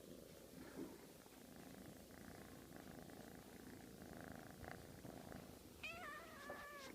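A domestic cat purring faintly and steadily, with a short, wavering meow near the end.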